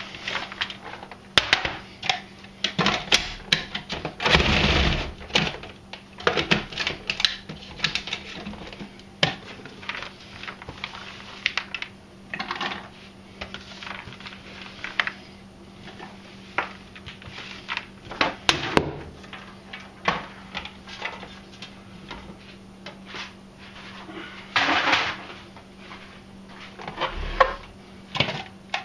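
Food processor running as fresh cranberries are fed down its feed tube, with an irregular clatter of clicks as the blade chops the berries. Louder bursts of chopping come about four seconds in and again near the end.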